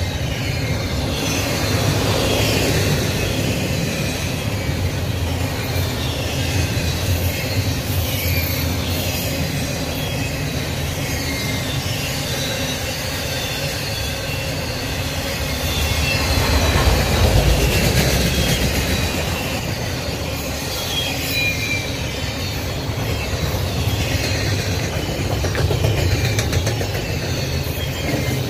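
Double-stack intermodal freight cars rolling past: a steady rumble of steel wheels on rail, with clicking over the rail joints and thin, wavering wheel squeal. It swells louder about two-thirds of the way through.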